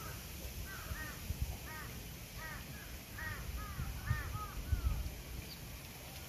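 Crows cawing in a quick run of short arched calls, several a second, from about a second in until past the middle. A low rumble runs underneath.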